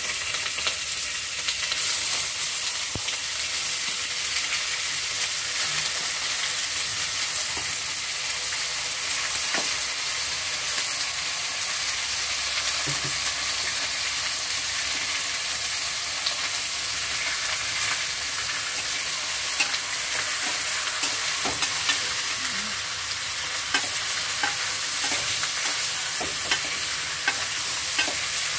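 Raw chicken pieces sizzling in a little hot oil in a metal pot. The steady frying hiss starts suddenly as the chicken goes in. Near the end, a spoon clicks and scrapes against the pot as the chicken is stirred.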